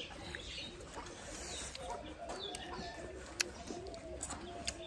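Pigeons cooing: a steady run of soft, low coos, a few a second, with a couple of sharp clicks near the end.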